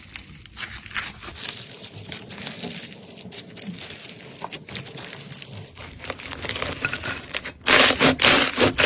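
Slime being squeezed and worked with close-up crackling, popping and crinkling sounds. Near the end a much louder, denser crackling takes over.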